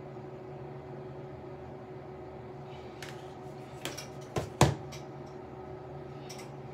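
Steady low hum, with a few light clicks and a sharp knock about four and a half seconds in as makeup things are handled and set down.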